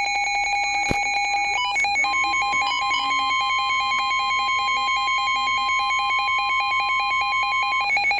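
Weather radio alert alarm: a fast electronic warble alternating between two high pitches that runs without a break. From about two seconds in until near the end, a steady single tone near 1 kHz, the NOAA Weather Radio warning alarm tone, sounds under it.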